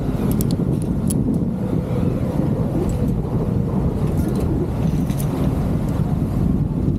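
Strong sea wind buffeting the microphone as a steady rumble, with a few light clinks of metal climbing gear against the steel ladder.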